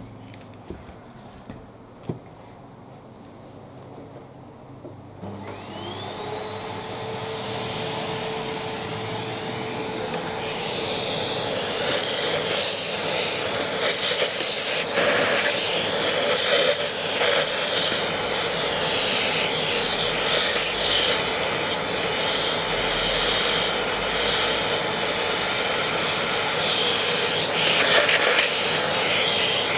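A few sharp clicks, then the Ariete Handy Force vacuum cleaner's motor switches on about five seconds in, its whine rising quickly to a steady pitch. From about halfway through, louder irregular rubbing and scraping runs over the motor.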